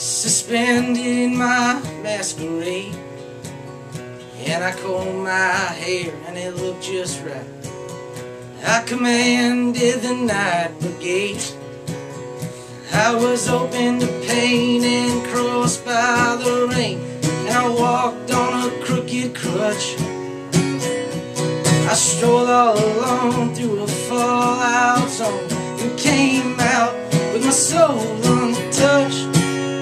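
Acoustic guitar played with a man singing over it, getting louder about halfway through.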